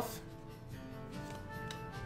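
Soft background music, with a few faint clicks of baseball cards being slid off the stack by hand.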